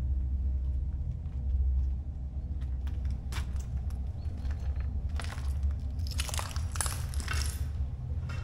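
Low droning ambient music, with a scatter of crackling and crunching noises about three seconds in and again from about five to seven and a half seconds in.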